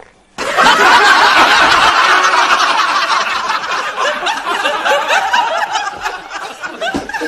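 A crowd laughing together, like a laugh track. It breaks out loudly about half a second in and slowly dies down.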